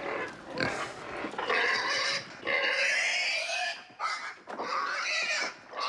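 A domestic pig squealing loudly in a string of long, shrill squeals about a second each, with short breaks between them. These are distress squeals from a pig being handled and lifted out of its pen.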